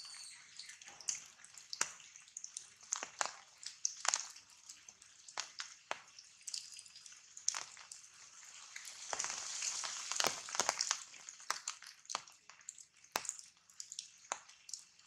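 Rain dripping from wet foliage: irregular sharp drops over a soft hiss of rain, which grows heavier for a couple of seconds about nine seconds in.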